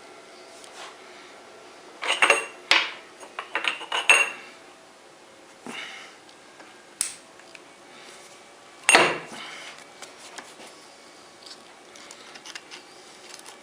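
Metal pieces knocking and clinking together as they are handled, in scattered sharp knocks. There is a cluster about two to four seconds in and the loudest clank about nine seconds in, over a faint steady hum.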